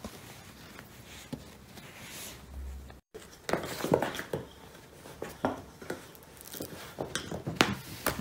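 Two cats wrestling on a wooden floor: irregular scuffling, paw thumps and knocks. It starts suddenly after a quiet stretch of room sound about three seconds in.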